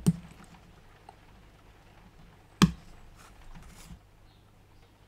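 Two sharp knocks about two and a half seconds apart, followed by a few faint clicks: small tools or kit parts being set down and handled on a hobby workbench.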